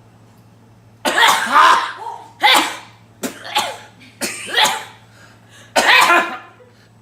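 A man sneezing loudly five times in a row, each sneeze a short, explosive burst with his voice in it; the first and last are the longest and loudest.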